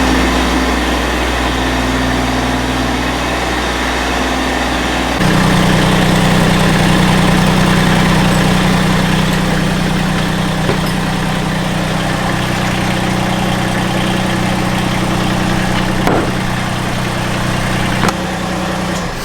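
Loader engine running steadily. About five seconds in it steps up to a higher, louder engine speed and holds there, with a couple of faint clicks near the end.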